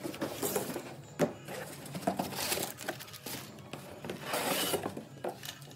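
Cardboard shipping boxes being handled and opened: irregular rustling and scraping of cardboard flaps, with scattered knocks and a sharp knock about a second in.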